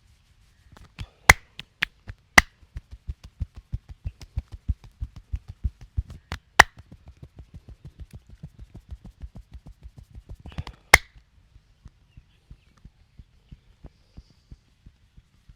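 Percussive hand massage: hands pounding steadily at about four strokes a second, with a few loud, sharp cracks, the biggest about a second in and near eleven seconds.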